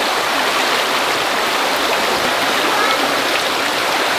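Shallow, rocky stream flowing steadily over stones, an even rush of water.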